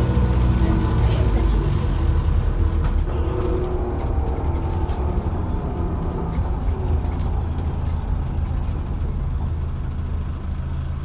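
Cabin sound of an Alexander Dennis Enviro400H MMC hybrid double-decker bus on the move: a steady low drivetrain drone with road noise, easing slightly in level over the seconds.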